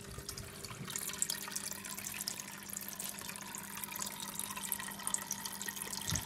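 Water from the tank's filter outlet pouring and splashing steadily into the terrapin tank's water, with a faint steady hum underneath.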